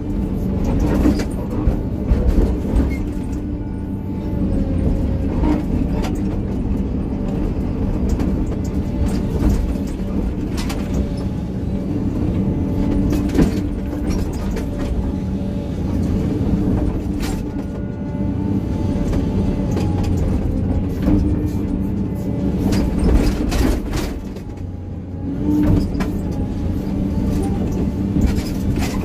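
Excavator's diesel engine working steadily with hydraulic tones coming and going, and scattered knocks and scrapes as the bucket works stony ground.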